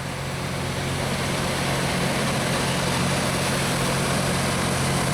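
Loram rail grinder train passing close by: a steady diesel engine drone under a broad grinding hiss, swelling slightly as it draws nearer.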